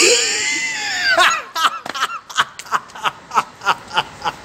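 A person gives a long high-pitched cry for about a second, then breaks into a run of laughter, short 'ha's at about four a second.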